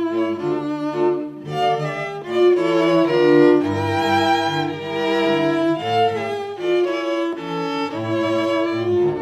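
Instrumental background music of bowed strings: a violin-like melody moving note to note over sustained lower notes.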